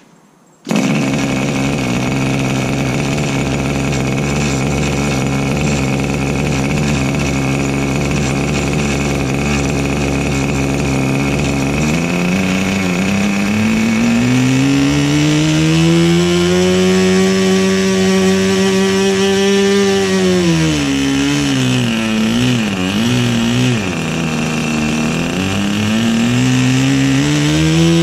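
O.S. Max 25 FP two-stroke glow-plug model aeroplane engine catching almost at once on an electric starter and running loudly. Its pitch holds steady for about twelve seconds, then rises, wavers and dips around twenty seconds in, and climbs again near the end as the engine speed changes.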